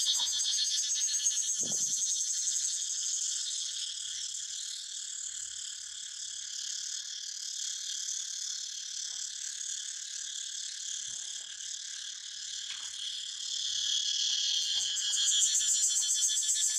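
Steady, dense, high-pitched buzzing of a daytime insect chorus. It eases off a little in the middle and swells again near the end.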